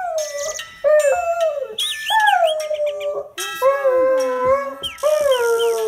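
A dog howling at an alarm clock: a string of drawn-out howls, each falling in pitch, about one a second. The alarm's tune plays underneath.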